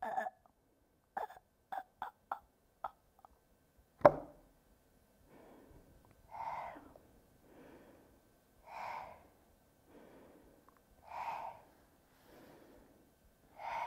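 A woman's voice making short gasping and clicking mouth sounds, then a single sharp knock about four seconds in. After it come slow, even breaths in and out, the out-breaths louder, about one full breath every two and a half seconds.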